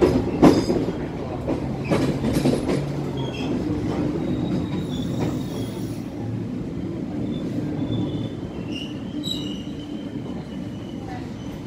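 Passenger train carriage wheels rolling over switch points, with several sharp knocks in the first few seconds, then steady running with intermittent high wheel squeal as the train takes a curve.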